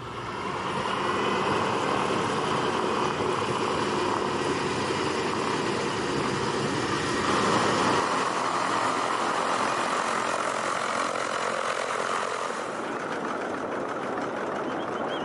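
Douglas C-47's twin Pratt & Whitney R-1830 radial engines running at idle, a steady drone that thins out slightly about three-quarters of the way through.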